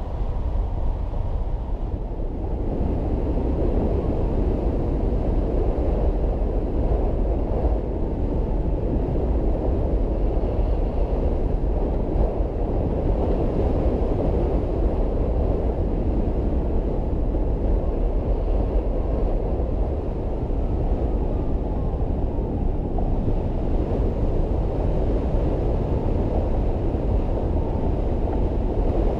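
Steady, muffled rush of airflow buffeting a GoPro microphone on a hang glider in flight.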